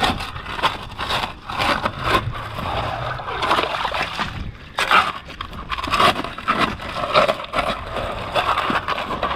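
Digging in wet tidal-flat sand: irregular scraping strokes and sloshing as seawater wells up into the hole.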